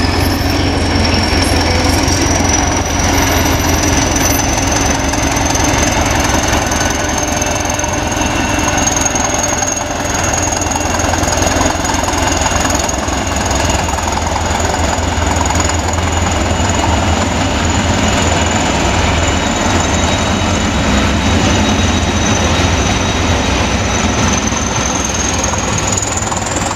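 Hastings diesel-electric multiple unit's diesel engine running hard as the train pulls away, a clattering, knocking engine note over a heavy rumble. A high whine rises at the start, holds steady, then climbs again near the end.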